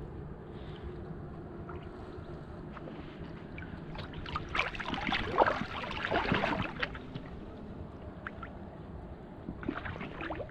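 Water splashing and sloshing at the river's edge, busiest about halfway through and again briefly near the end, over a low steady rumble.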